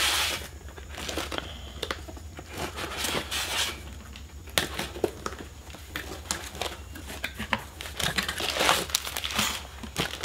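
A cardboard shipping box and its packing material being handled and opened. Irregular crinkling, rustling and tearing, busiest near the end.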